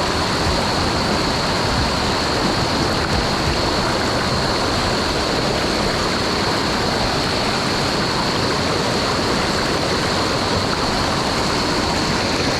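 Mountain stream rushing over rocks and small waterfalls: a steady, loud rush of water with no breaks.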